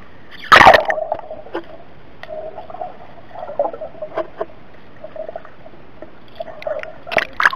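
Action camera plunging into swimming-pool water with a loud splash about half a second in, then muffled underwater bubbling and gurgling with small clicks as a swimmer moves close by. Another splash comes near the end.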